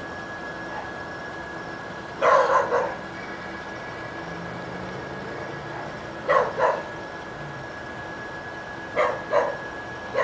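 A dog barking in short runs of two or three barks, a few seconds apart.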